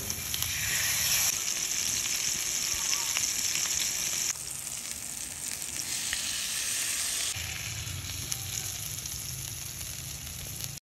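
Marinated chicken pieces frying in hot oil in a cast iron skillet, a steady sizzle whose level shifts abruptly a few times.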